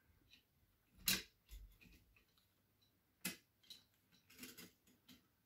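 Sauer 303 rifle parts being handled and fitted during reassembly: two sharp clicks, one about a second in and one a little past three seconds, with faint ticks and handling noises between.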